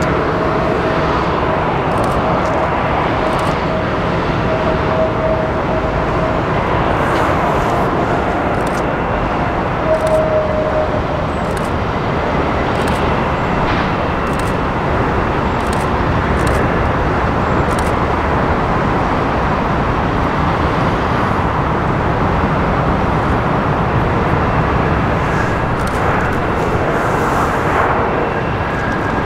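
Steady, loud jet engine noise from an airliner, an even rumble and hiss with faint steady tones early on.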